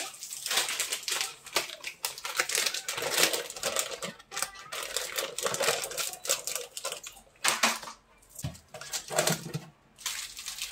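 Plastic snack wrappers crinkling and rustling as packets are handled and laid into a kitchen drawer, with a couple of short pauses in the handling.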